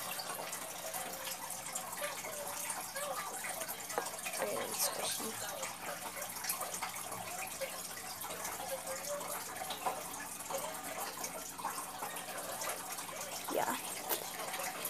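Soft scratchy rustling of a foam squishy being squeezed and handled close to the microphone, over a steady hiss.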